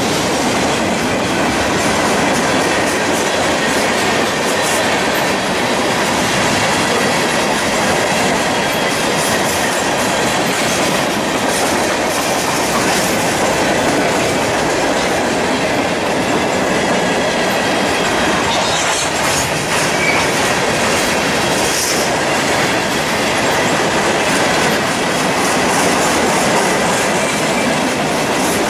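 Freight train cars rolling steadily past, with the continuous noise of steel wheels running on the rails.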